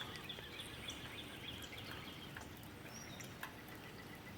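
Faint steady hiss of light drizzle and rainwater running from a gutter downspout, with a few sharp ticks. Neighborhood songbirds chirp softly over it.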